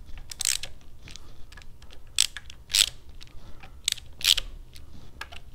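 Hand ratchet clicking in about five short bursts, with lighter metallic ticks between, as the cam cover screws on a Sportster engine are run down snug.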